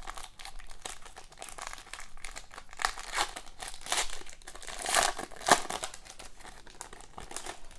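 A hockey card pack's wrapper crinkling and tearing as it is opened by hand, in irregular crackles that are loudest around the middle.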